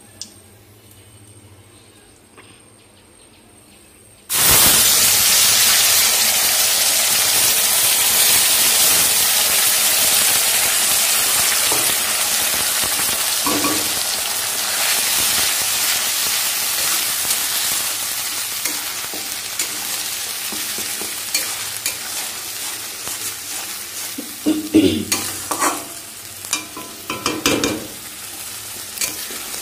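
Wet ground spice paste dropped into hot mustard oil in a kadai: a sudden loud sizzle about four seconds in that slowly dies down as the paste fries. Near the end, a spatula scrapes and taps the pan as the paste is stirred.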